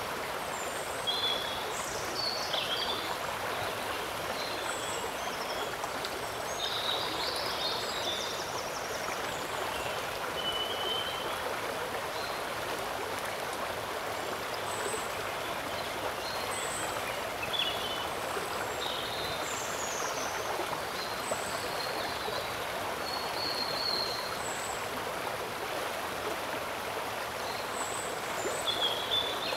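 Steady rush of flowing shallow water, with short high chirps of small birds scattered throughout.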